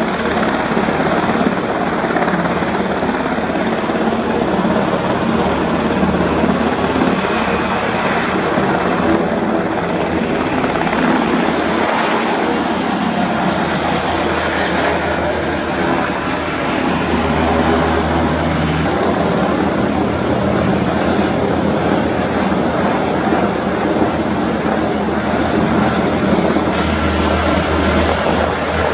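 Black Hawk helicopter's main and tail rotors and twin turbine engines running, loud and steady.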